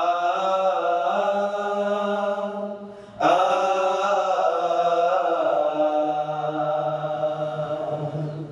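Male vocal trio singing in harmony without instruments, in two long held phrases without clear words; the second phrase starts about three seconds in and fades out near the end.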